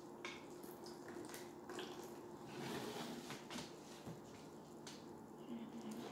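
Soft wet squishing and crackling of fluffy slime, white glue and shaving cream, being kneaded and squeezed by hand, over a faint steady hum.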